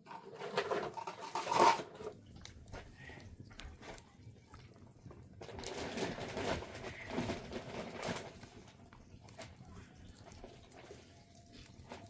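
Wet gypsum plaster being worked by hand, scraped and mixed in metal basins. It comes in two bouts of scraping and squelching, one near the start and a longer one from about five to eight seconds in.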